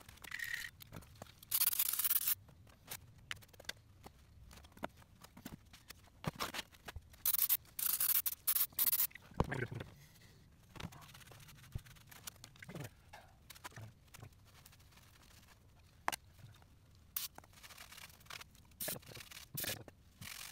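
Irregular rustling, rubbing and scraping of work gloves being pulled on and shop rags being handled at a truck wheel hub, with scattered light clicks and knocks.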